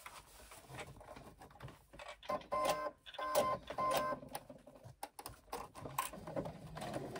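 Brother domestic sewing machine stitching in a few short bursts, stopping and starting, with small clicks of the mechanism and fabric handling in between.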